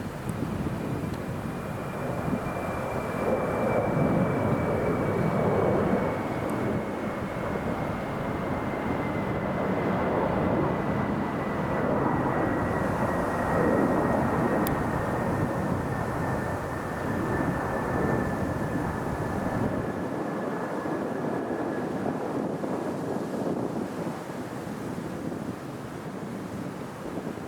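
Airliner passing by: a steady engine rumble that swells over the first few seconds and eases near the end, with a thin high whine that slowly falls in pitch.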